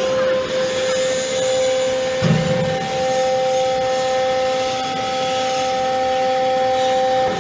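Scrap-metal baler running with a steady whine over a hiss. A second, higher tone joins about a second and a half in, and there is a brief knock about two seconds in.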